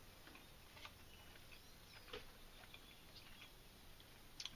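Near silence with faint, irregular soft clicks of someone chewing a sandwich.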